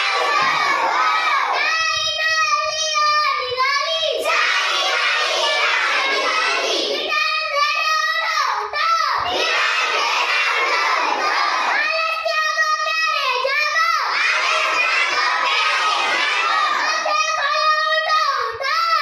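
A group of children chanting a Hindi rhyme loudly together in a mix of shouting and sing-song recitation, with a more tuneful sung line about every five seconds.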